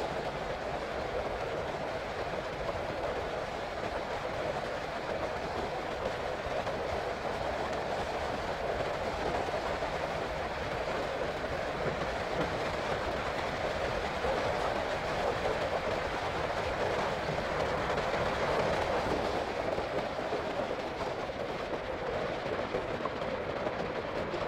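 A steady rush of wind and road noise from a Honda CB150R motorcycle on the move.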